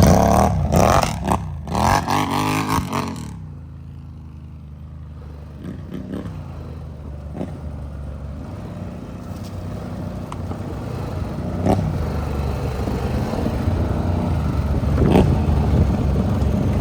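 ATV engine running on a trail ride: loud clattering and rattling for about the first three seconds, then a quieter, steady low engine note that slowly grows louder, with a few sharp knocks.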